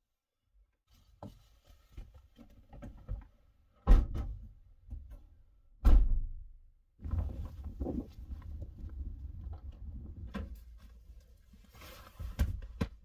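Light rustling and handling at the back of a Honda Element, then two heavy thunks about two seconds apart as its split rear tailgate and upper hatch are slammed shut. After that a steady low rumble of wind, with scattered knocks as someone climbs into the driver's seat.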